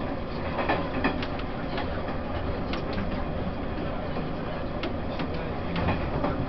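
Running noise of a Taiwan Railways E1000 push-pull Tze-Chiang express train: a steady rumble of wheels on the rails, with a few light clicks scattered through it.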